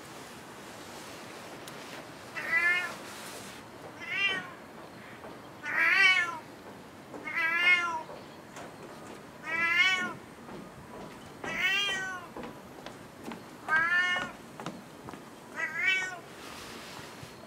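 A cat meowing over and over: about eight meows, roughly two seconds apart, each rising and then falling in pitch.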